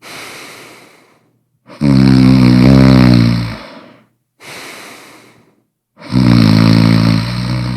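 A person snoring loudly: two long snores of about two seconds each, with a shorter, fainter breath before each one.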